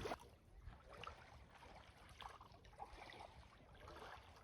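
Near silence: faint outdoor ambience with a few soft, short, scattered sounds.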